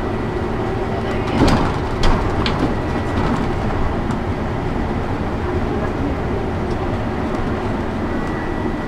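Cabin of a moving city bus: steady engine and road noise, with a few sharp knocks and rattles between about one and a half and two and a half seconds in.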